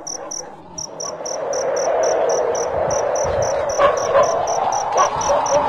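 Cricket chirping steadily, about four chirps a second, over a low background drone that swells from about a second in.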